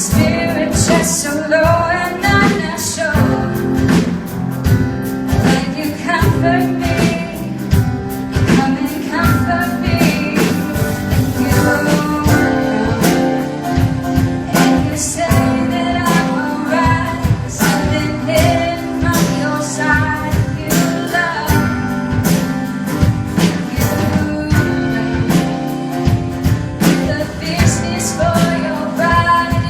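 A song: a voice sings a melody over instrumental backing with a steady beat.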